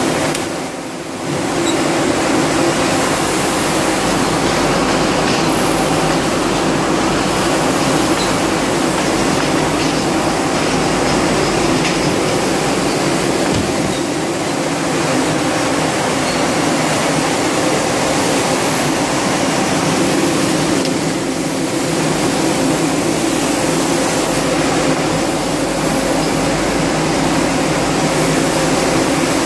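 Glass bottle frosting production line machinery running: a steady mechanical din of motors and conveyor with a constant hum, dipping briefly about a second in.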